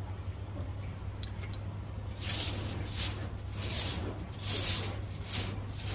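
Noodles being slurped: a run of short hissing slurps, several a second, starting about two seconds in, over a steady low rumble.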